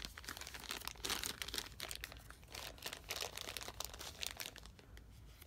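Zip-top plastic bag packed with small ink sample vials crinkling irregularly as it is handled and turned over in the hand.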